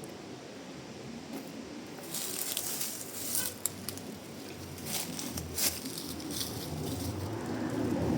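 Rustling and crackling with a few sharp clicks, starting about two seconds in over a steady hiss.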